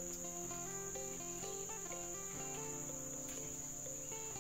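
Steady high-pitched drone of forest insects, like crickets, running without a break. Under it, background music plays with slow, held notes that change pitch every half second or so.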